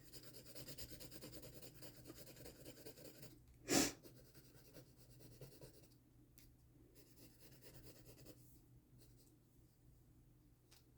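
Charcoal scratching and rubbing softly across paper in drawing strokes. A short sharp puff of breath stands out about four seconds in.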